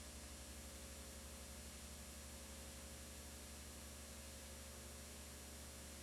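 Faint steady electrical hum with a background hiss, and nothing else: the recording's own noise floor.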